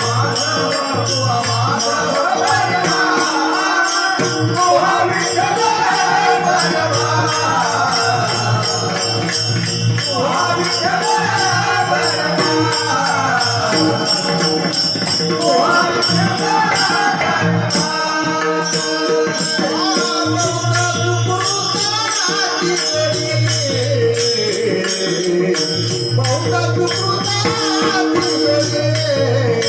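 Devotional bhajan music: a wavering melody line over steady held drone notes, with fast, even metallic jingling keeping the beat.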